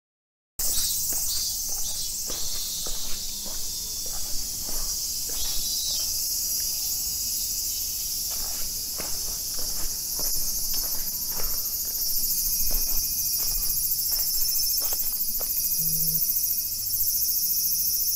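A steady, high-pitched chorus of insects, with the footsteps of someone walking at an even pace on pavement underneath.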